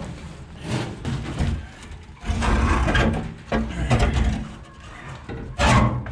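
Irregular scraping, rubbing and knocks of a steel gas tank being shifted and slid into place under a car, with a louder stretch about two seconds in and a short sharp scrape near the end.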